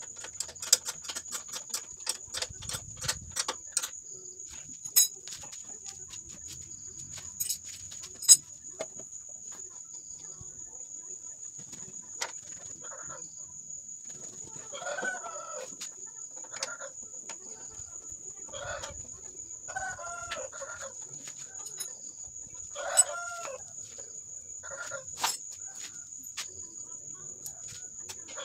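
Light metal clicks and taps from hand tools and bolts as sheet-metal panels are fitted to a grass chopper, coming quickly in the first few seconds and then now and then. A steady high insect trill runs underneath, and short pitched animal calls come several times in the second half.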